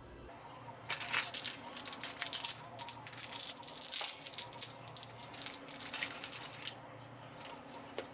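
Plastic or paper being crinkled and rustled by hand close to the microphone, a dense crackling for about six seconds that stops near the end.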